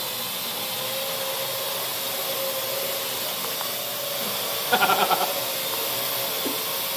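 Parrot AR.Drone quadcopter flying, its four rotors giving a steady whir with a steady humming whine. About five seconds in, a short stuttering pitched sound of about six quick pulses cuts across it.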